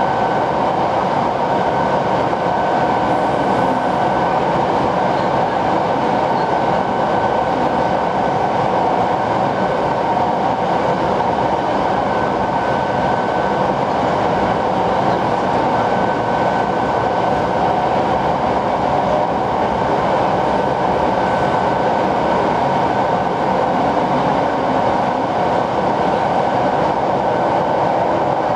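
Hokushin Kyuko electric train running steadily at speed through a tunnel: a continuous rolling rumble with a thin, steady high whine over it.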